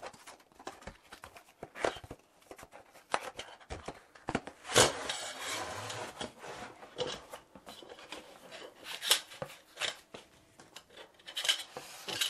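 Cardboard packaging being handled and slid out of a box: scattered taps and rubbing, with a longer scraping slide of cardboard on cardboard about five seconds in. Near the end, sharper knocks as aluminium channel strips are lifted out.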